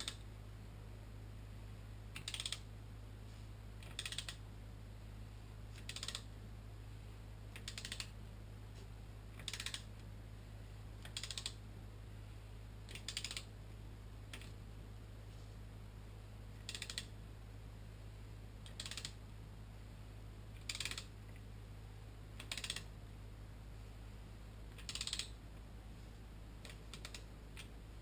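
Socket ratchet clicking in short bursts about every two seconds, turning a Kawasaki ZX-10R engine's crankshaft over by hand. The clicks are faint.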